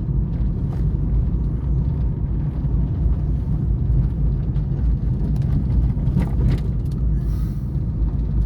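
Car running, heard from inside the cabin: a steady low engine and road rumble.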